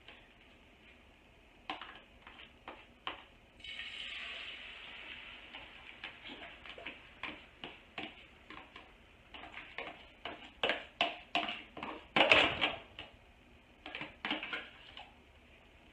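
Beaten eggs pouring into a hot frying pan and sizzling, the sizzle starting suddenly a few seconds in. This is followed by quick repeated scraping and tapping as the last of the egg is scraped out of a plastic container, loudest about three-quarters of the way through.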